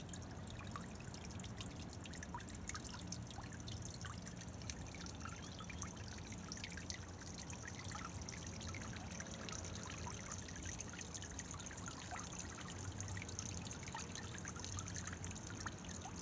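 Solar-powered floating fountain pump throwing jets of water that fall back onto the pond surface: a steady trickling splash, dotted with many small droplet splashes.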